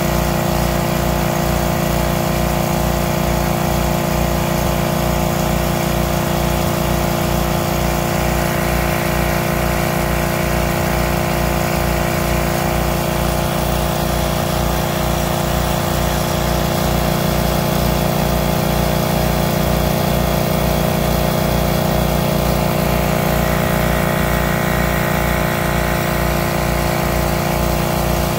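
Homemade snow-making setup running: a small engine drives it with a steady hum and a low regular pulse, under the even hiss of the snow gun's nozzles spraying mist.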